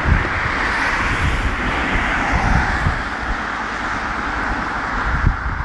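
Waterfall pouring down rock cliffs: a steady rush of falling water, with low gusts of wind buffeting the microphone.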